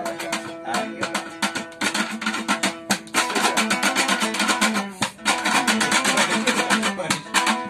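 Dambura, the long-necked Afghan lute, strummed in a fast, even rhythm, with steady ringing notes under the melody.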